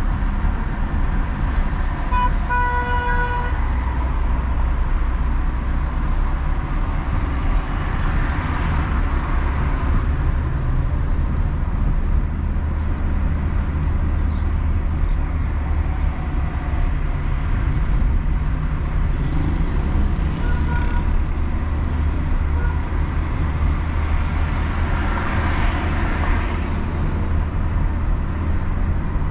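Steady low rumble of a car driving through city traffic, with a car horn honking briefly about two seconds in and a fainter short honk about twenty seconds in. Traffic noise swells twice, around eight and twenty-five seconds in.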